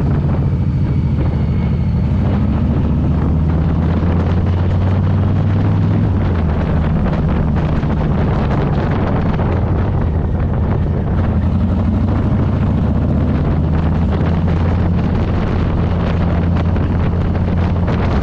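2022 Harley-Davidson Low Rider S's Milwaukee-Eight 117 V-twin running under way, its exhaust note rising and falling a little with the throttle. Wind buffets the microphone.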